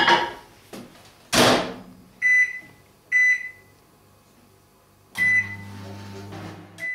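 Microwave oven being loaded and started: a knock, then the door slamming shut, two keypad beeps as the time is set, and a third beep as the oven starts running with a low steady hum. It is heating cold porcelain paste for a short extra burst because the paste is still a little sticky.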